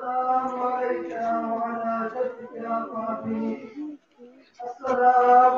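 Male voice chanting a farewell noha, a Shia lament for Husayn, with long held melodic lines and no instruments; the chant breaks off briefly near the four-second mark and comes back louder.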